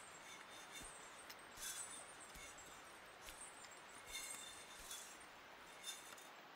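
Faint jingling of small metal bells on a waist belt, shaken in short bursts about once a second with each step of the wearer as he walks.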